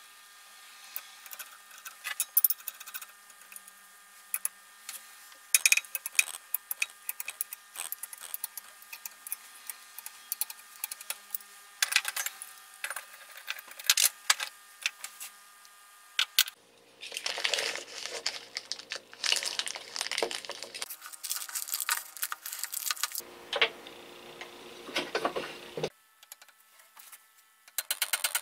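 Rapid, irregular metal clicks and clinks from bearing pullers being fitted to the armature shaft of a Makita 1800 electric planer and worked to draw off its bearing. Partway through, the steady background hum changes abruptly several times.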